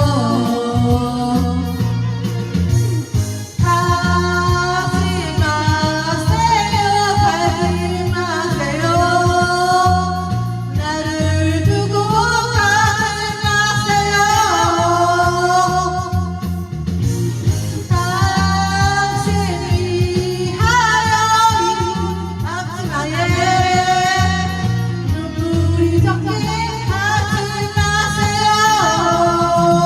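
A woman singing a slow Korean trot song with vibrato, over band accompaniment with guitar and a steady bass line.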